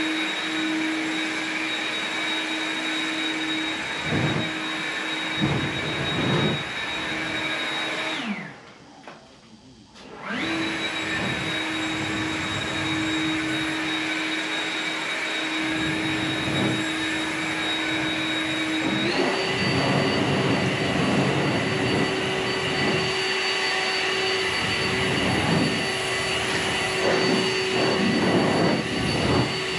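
Blower running with a steady motor whine and rush of air; it is switched off about eight seconds in and spins down, starts up again about two seconds later, and about nineteen seconds in steps up to a higher speed. Scattered knocks and rattles sound alongside it.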